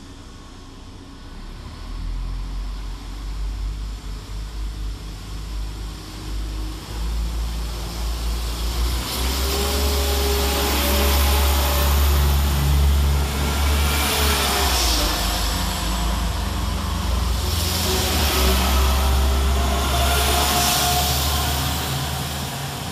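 Two coupled Class 172 Turbostar diesel multiple units running past along the platform. Their diesel rumble builds over several seconds to a steady peak, with a whine that shifts in pitch and loud wheel-on-rail noise as the carriages go by, then eases near the end.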